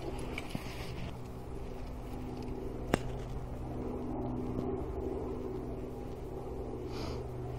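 A steady low mechanical drone, with one sharp click about three seconds in.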